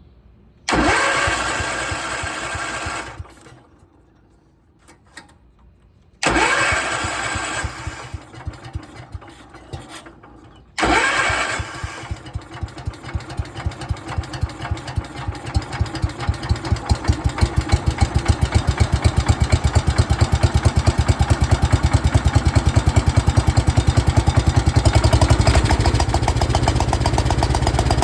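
1972 John Deere 110 garden tractor's single-cylinder engine, a hard start: three tries on the starter, the first two sputtering out, the third catching and running on with an uneven pulse that grows louder. The owner believes the engine has a blown head gasket.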